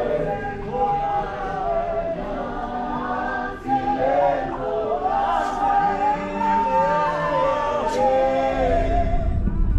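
A choir singing in harmony, with long held notes, unaccompanied; the singing ends shortly before the end and a low rumble comes in.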